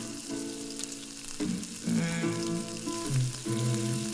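Sliced onion sizzling in hot oil in a steel pot, stirred with a plastic spatula, with a fine steady hiss and light scrapes. A background song with steady held chords plays louder over it.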